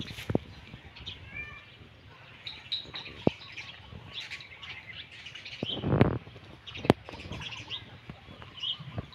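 Birds chirping in short, scattered calls, with a few sharp clicks and a louder rustling thump about six seconds in.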